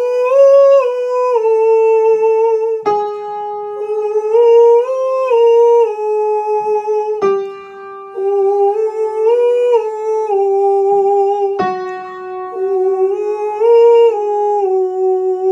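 A man singing a vocal warm-up figure in head voice around the A above middle C: a short phrase that steps up and back down, repeated four times, each time a step lower. Chords are struck at the start of the new phrases.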